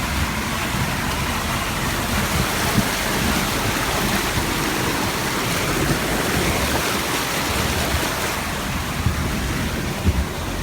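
River water rushing and splashing around a Jeep wading through the current, with the Jeep's engine running low underneath.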